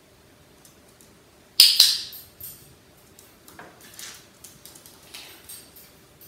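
A pet parrot giving one loud, sharp squawk about a second and a half in, followed by a few light taps and clicks.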